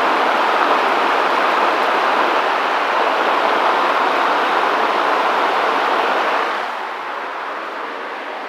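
Commercial Electric 24-inch direct-drive drum fan with metal blades running on its high setting: a loud, steady rush of air that drops somewhat in level about two-thirds of the way through.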